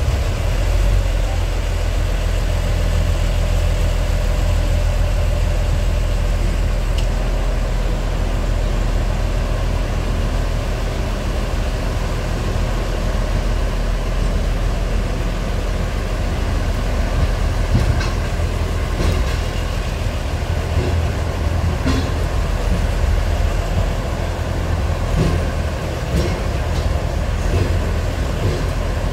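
DR2300-series diesel railcar running, heard from inside the carriage: a steady low diesel engine drone with wheel and rail noise. A scattering of short clicks and knocks comes in the second half.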